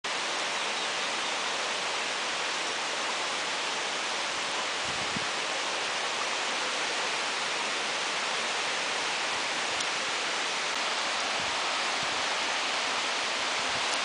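Steady rushing hiss of a tall waterfall falling down a rock face, with a soft low bump about five seconds in.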